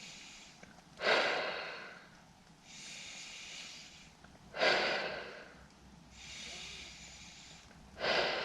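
A person blowing up an inflatable air mattress by mouth: three hard breaths blown into the valve about three and a half seconds apart, each coming on suddenly and fading away, with a long breath drawn in between them.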